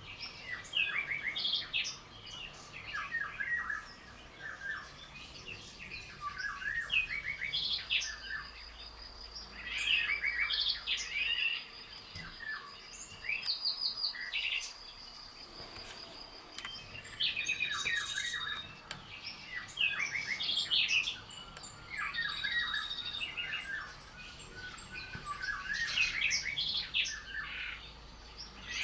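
Wild songbirds singing and calling: many short, quick chirping phrases overlapping one another, with a thin, steady high note held for several seconds in the middle.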